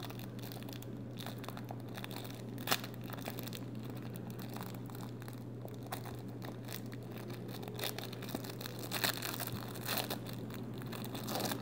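Thin clear plastic wrapper on a trading card crinkling and crackling as fingers pick at it to open it, in scattered short crackles that come more often near the end. A steady low hum lies underneath.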